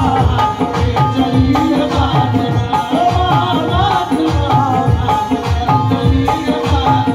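Qawwali: a man singing into a microphone over sustained harmonium chords and a steady hand-drum rhythm.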